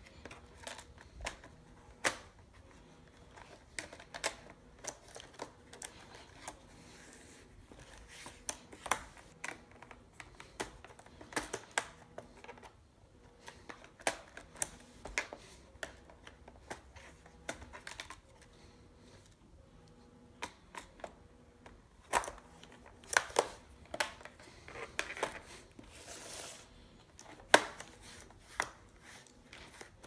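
Lenovo Z570 laptop's plastic bottom memory cover being pressed back into place and a screwdriver turning its retaining screw: scattered sharp plastic clicks and taps, with a run of louder ones about two-thirds of the way through.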